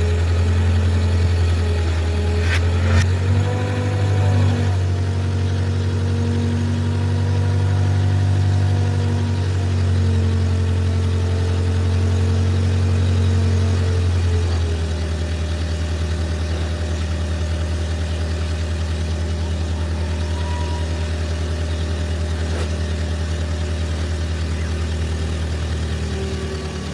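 Excavator engine running steadily at work, with a deep, even hum whose pitch wavers a few seconds in and settles a little lower about halfway through.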